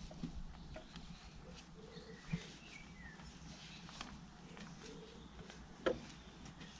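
Quiet garden ambience with faint bird chirps, broken by a few short knocks, the sharpest about six seconds in.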